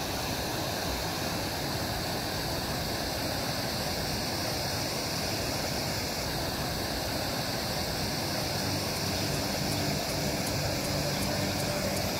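Steady rushing noise that fades in just as it begins, with faint low music notes coming in near the end.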